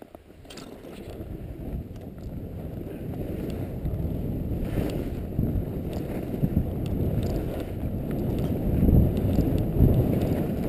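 Skis running over snow with low wind rumble on the body-mounted camera's microphone. It grows louder over the first few seconds as the skier picks up speed.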